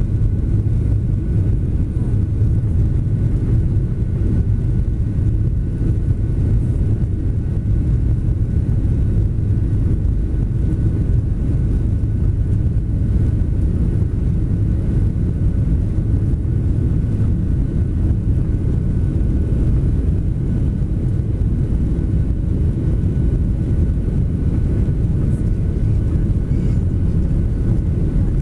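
Cabin noise of a jet airliner taxiing, heard from a window seat over the wing: a steady low rumble of the engines at low power and the rolling airframe, with a faint steady high whine.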